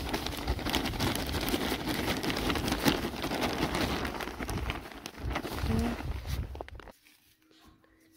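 Loose soil poured from a large plastic sack into a planting hole: a dense pattering rush that stops about seven seconds in.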